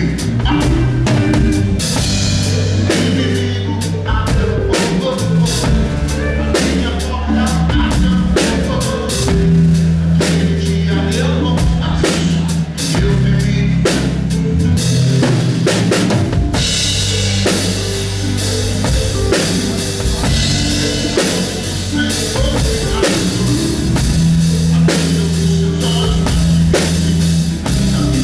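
Drum kit played with a live band: kick and snare drive a steady beat under sustained bass notes. About halfway through, the cymbals open up into a bright wash.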